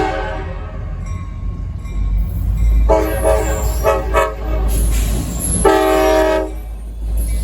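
Diesel locomotive air horn sounding a chord in separate blasts: one ending just after the start, a longer broken blast about three seconds in, and another near six seconds, over the steady low rumble of the train.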